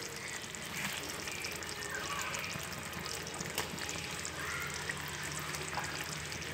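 Pork simmering in its reduced braising sauce in a shallow metal pan on a gas flame: a steady fine sizzle and bubbling, with one small click about three and a half seconds in. The dish is at the end of cooking, just before the heat is turned off.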